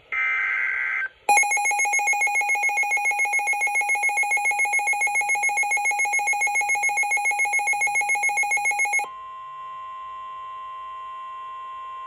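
NOAA weather radio receiving a flood warning. About a second of screeching digital SAME header data comes first. The radio's own alert alarm then beeps in fast, loud pulses, about six a second, for roughly eight seconds. A steady 1050 Hz warning tone follows for about three seconds.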